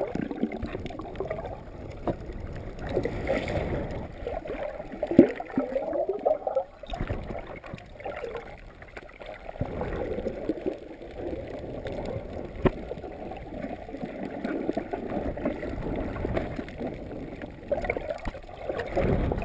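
Muffled underwater water movement and gurgling from a swimmer moving through the water, heard with the microphone below the surface, with a louder gurgle about five seconds in.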